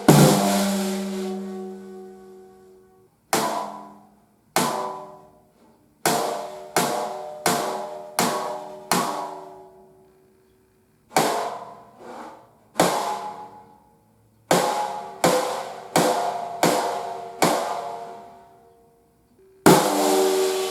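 Snare drum with a single-ply batter head struck in single hits and short runs of about two strokes a second, with pauses between groups. Each stroke rings with a clear pitched overtone and dies away over a second or two.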